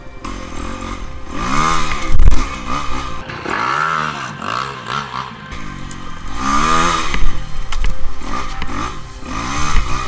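Enduro dirt bike engine revving up and down over and over as the throttle is worked, with a heavy thump about two seconds in.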